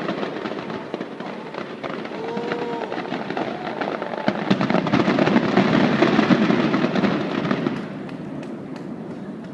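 Fireworks display: a dense barrage of rapid cracks and bangs that grows loudest about halfway through and then dies away near the end.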